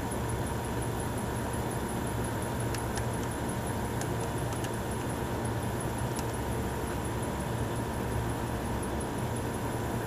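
1931 Frigidaire refrigerator's belt-driven condensing unit running with a steady motor-and-compressor hum, while the cold control is held in a colder position to keep it running on a barely charged system. A few faint ticks of the control mechanism being handled come through about three to six seconds in.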